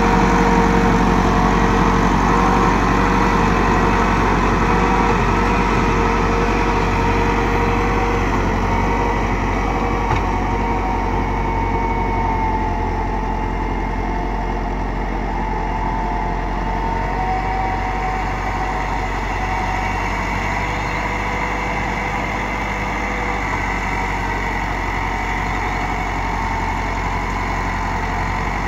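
Massey Ferguson 375 tractor's four-cylinder diesel engine running steadily under load while it drives a rotavator through the soil. It grows gradually quieter as the tractor moves away.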